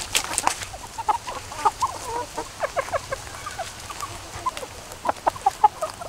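A flock of mostly asil gamefowl hens and pullets clucking in short, scattered, overlapping calls, with a few sharp clicks just after the start.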